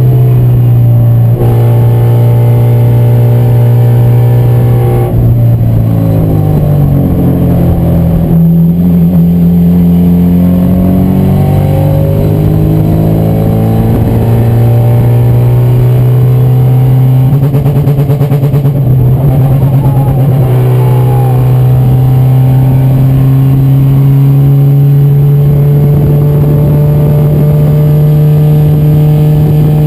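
Race car engine running hard at high revs. Its pitch drops and climbs again several times as it shifts through the gears.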